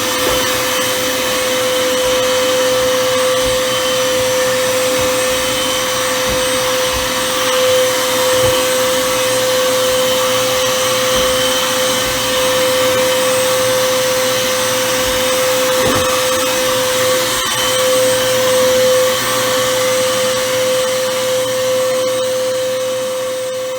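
Handheld vacuum cleaner running steadily, a constant motor whine over airflow noise, fading out near the end.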